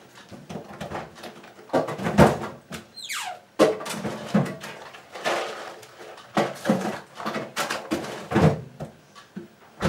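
Frozen food being put away in a freezer: a run of irregular knocks and thuds as a freezer door or drawer is opened and closed and the packets are handled, with a short falling squeak about three seconds in.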